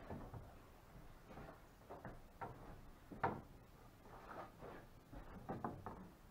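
Faint knocks and rubbing of plywood deck pieces being shifted and pressed into place by hand, with one sharper knock about three seconds in.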